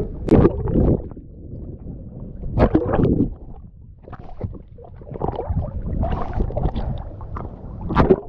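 Water splashing and sloshing around a boat with wind noise on the microphone, coming and going in irregular loud surges.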